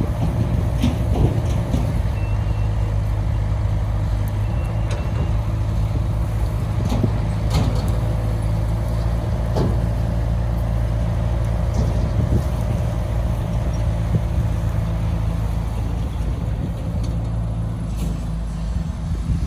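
Heavy diesel engine of a dump truck or excavator running steadily under load, with scattered metallic knocks and clanks from the machinery.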